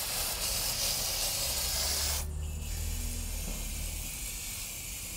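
Water sprayed hard onto a truck wheel and tire, rinsing off the wheel-cleaning gel: a steady spray that shifts in tone a little past two seconds in.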